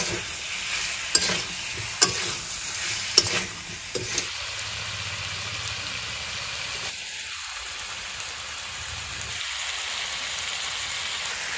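Pork pieces frying and sizzling in oil in a steel kadai, stirred with a metal spatula that knocks against the pan a few times in the first four seconds; after that a steady sizzle.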